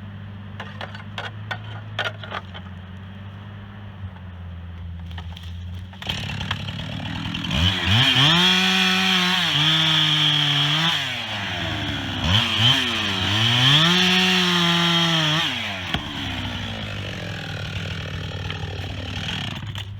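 Chainsaw revving up about six seconds in and running at high speed in two long runs, its pitch falling briefly between them and dropping back near the end. Under and around it is a steady low hum with scattered light clicks.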